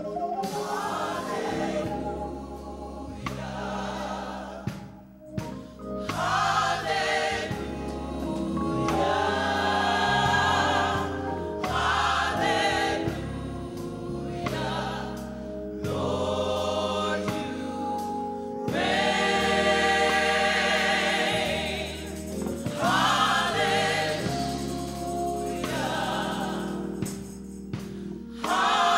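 Gospel choir singing in swelling phrases over sustained low accompaniment.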